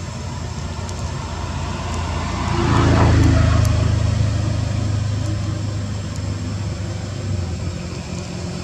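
A motor vehicle's engine running, growing louder about three seconds in as it passes, then easing back to a steady low hum.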